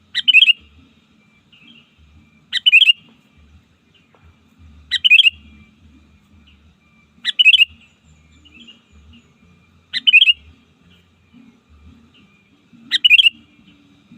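Sooty-headed bulbul (kutilang) calling: a short, bright phrase of a few quick notes, repeated six times at an even pace of about one every two and a half seconds, with faint chirps in between.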